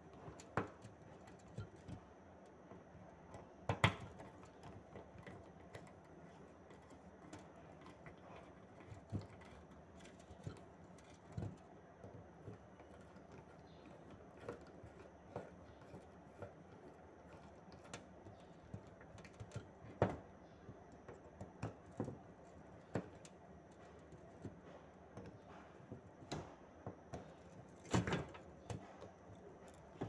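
Scattered small clicks and taps of a screwdriver working the screws on a limit switch's metal head as it is tightened back together, with a few sharper knocks, the loudest about four seconds in.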